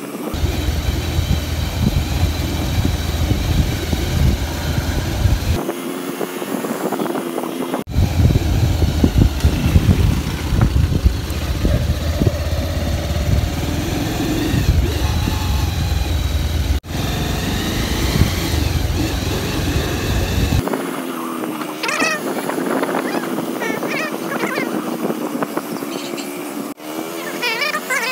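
A motorbike's engine running as it rides along, its note rising and falling, with heavy wind rumble on the microphone that comes and goes. The sound breaks off abruptly at a few points.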